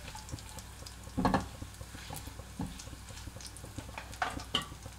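Tempering of whole cumin seeds, dried red chillies and bay leaves sizzling in hot oil in an aluminium kadai, with scattered crackles and pops as the spices splutter, the sign that the oil is hot and the tempering is done. A spatula stirring scrapes against the pan about a second in.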